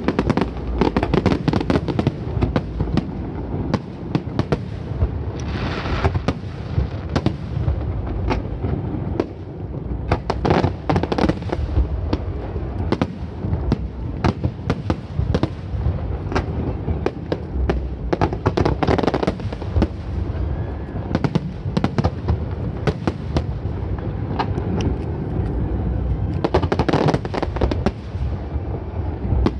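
Aerial fireworks shells going off in a dense, continuous barrage: deep booms mixed with rapid sharp cracks and crackling, with heavier crackling spells several times.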